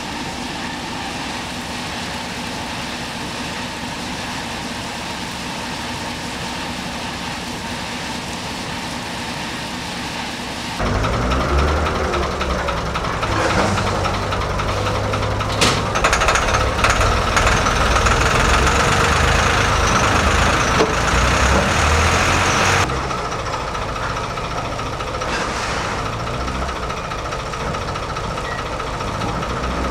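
Forklift engine running: it starts to run much louder about a third of the way in, then drops back to a steady idle about three-quarters of the way through.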